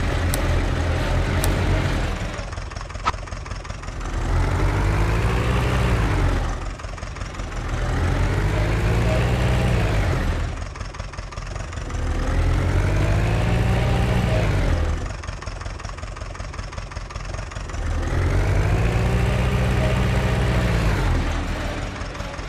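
Tractor engine revving up and dropping back, over and over in four even surges about four seconds apart, with a steady low rumble between them.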